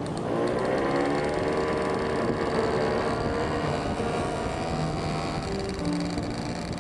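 Motor scooter engine running under way, its pitch rising over the first two seconds as it speeds up and then holding fairly steady, with wind and road noise.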